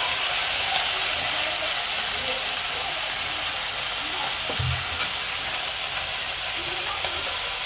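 Small mourala fish frying in hot mustard oil in a kadai, a steady sizzle. A brief low thud about four and a half seconds in.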